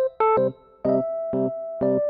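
Background music: an electric piano playing a light melody over repeated chords.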